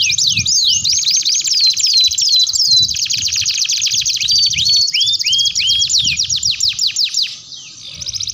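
Domestic canary song: a long, fast run of downward-sweeping whistles and rolling trills. It breaks off briefly about seven seconds in, then resumes as a dense, rapid trill near the end.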